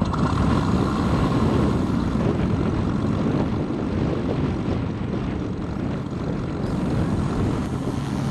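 Onboard sound generator of an electric scale Spitfire model playing a Rolls-Royce Merlin engine sound, running steadily as the model sits on the ground with its propeller turning. Wind buffets the microphone throughout.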